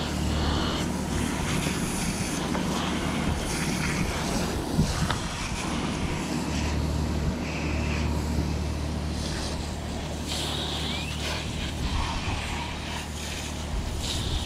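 Pressure washer running: a steady motor hum that swells and eases as the wand is triggered, under the hiss of water spraying onto the fish-cleaning table.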